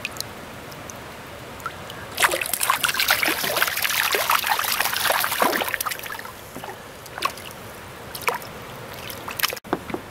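Water splashing and sloshing at the surface right beside the kayak for a few seconds, a dense patter with a few falling drip sounds, then settling into scattered single drips.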